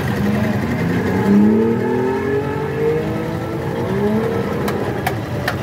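A passing motor vehicle's engine accelerating, its pitch rising in several successive pulls, over steady street-traffic noise. A few sharp clicks near the end.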